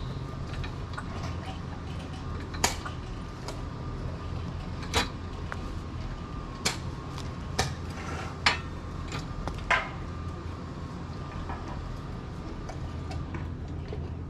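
Scattered sharp knocks and clanks of metal tools and parts being handled, about six of them one to two seconds apart, over a steady low hum.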